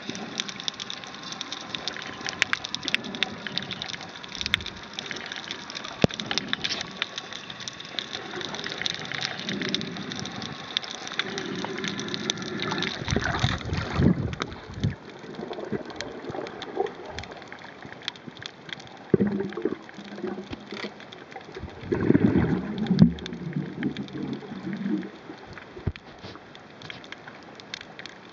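Underwater sound picked up by a submerged camera: a continuous crackle of small clicks and pops, broken by several louder bursts of bubbling and gurgling from about halfway through.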